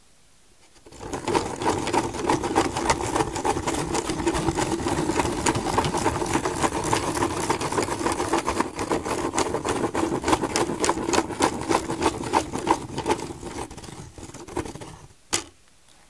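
Spirograph gear wheel being turned with a pen around the inside of a plastic toothed ring: rapid, dense clicking of the plastic teeth mixed with the pen scratching on paper. It starts about a second in, runs steadily and stops near the end, followed by a single sharp click.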